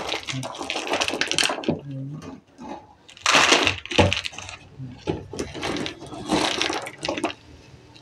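Dried maize kernels rattling against hard plastic as they are scooped with a toy loader bucket and poured into a plastic toy dump truck bed. The clatter comes in several bursts of rapid clicks, the loudest a little over three seconds in and again about six seconds in.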